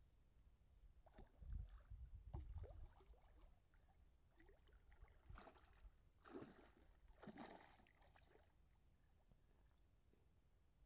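A hooked fish splashing at the water's surface as it is played on a rod, in several short bursts about five to eight seconds in. Before that, low rumbling thumps about one to three seconds in.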